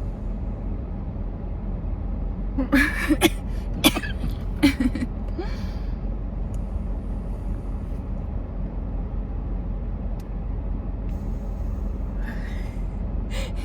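A person coughing, four or five short coughs close together about three to five seconds in, over the steady low hum inside a car.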